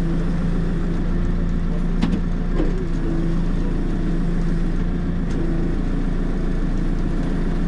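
JCB 3CX backhoe loader's diesel engine running at a steady speed, with a couple of short knocks about two seconds in.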